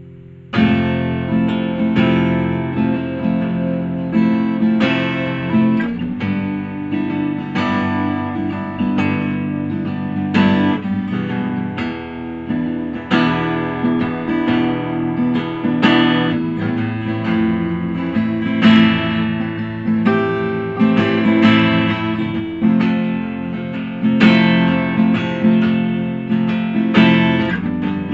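Instrumental song passage of strummed guitar chords with no singing, coming in sharply about half a second in.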